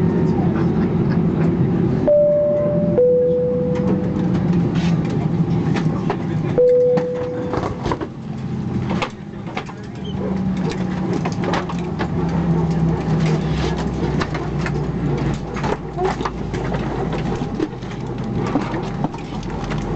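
Airbus A319 cabin chimes: a two-tone high-low chime about two seconds in, then a single lower chime about seven seconds in. Underneath is the steady hum of the parked airliner's cabin, with scattered clicks and knocks.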